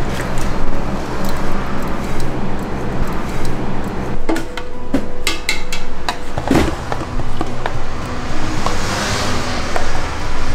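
A metal ladle knocking and scraping against a stainless steel stockpot and a plastic cup while tapioca pearls in syrup are scooped out, with a cluster of sharp clinks in the middle, over a steady low background.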